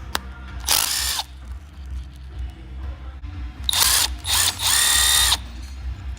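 Handheld power tool run in short bursts, spinning bolts out during an engine teardown: once about a second in, then three bursts close together, the last and longest near the end.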